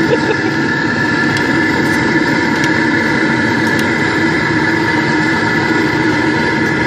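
Gas-fired homemade melting furnace running at full heat with aluminium scrap in its mouth: a loud, steady rushing sound with a constant hum in it.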